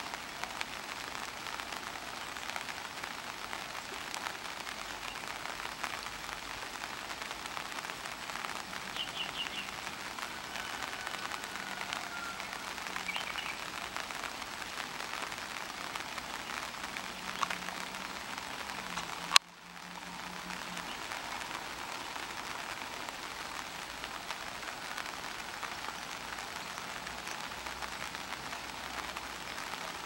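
Steady hiss of light rain falling, with a few faint high bird chirps and a thin drawn-out whistle over it. A single sharp click comes past the middle.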